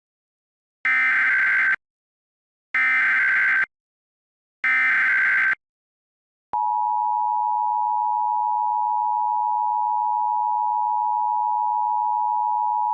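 Emergency Alert System SAME header: three bursts of warbling digital data tones, each about a second long. About six and a half seconds in, the steady two-tone EAS attention signal starts.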